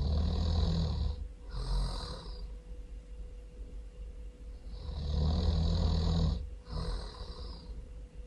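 A person snoring really loud: two snores about five seconds apart, each a long drawn-out breath followed by a shorter one.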